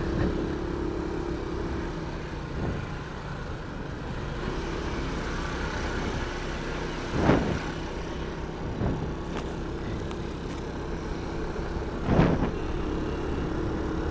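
Aprilia SXR160 scooter's single-cylinder engine running steadily while being ridden through traffic, with road noise. About seven and twelve seconds in, two brief louder swells rise and fall.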